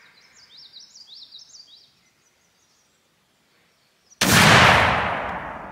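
A single shot from a Pedersoli side-by-side muzzleloading shotgun about four seconds in: a sudden loud report that dies away slowly over the next second and more. Before it, a small bird sings a quick run of high descending chirps.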